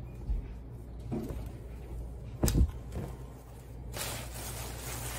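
Clothes and a plastic shopping bag being handled: a few soft knocks, the loudest a low thump about two and a half seconds in, then plastic bag rustling from about four seconds in.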